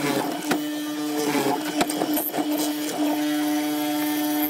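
Benchtop hollow-chisel mortiser running with a steady motor hum while its square chisel and auger bore into the wood, with a couple of sharp knocks as the chisel plunges.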